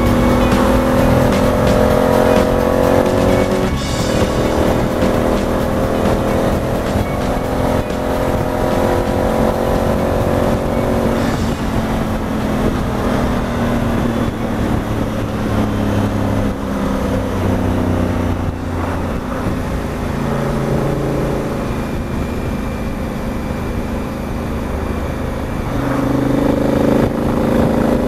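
Honda Africa Twin's parallel-twin engine pulling on the open road, its revs climbing steadily, dropping with an upshift about four seconds in and climbing again, and rising once more near the end, over wind rush.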